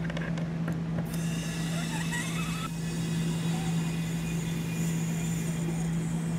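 Compressed air hissing steadily through an inflator chuck into the inflation valve of Air Lift LoadLifter 5000 rear air springs, starting about a second in after a few light clicks, with a brief rising whistle early in the hiss. A steady low hum runs underneath.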